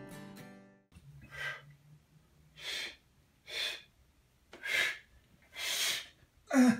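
Acoustic guitar music fading out in the first second, then a man's sharp, heavy breaths from exertion during a one-legged squat, five of them about a second apart. Right at the end comes a short voiced groan falling in pitch.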